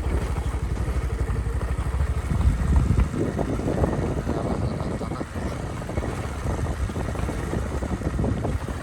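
A motor vehicle's engine running with a low, even throb that falls away about three seconds in, followed by rattling and clattering.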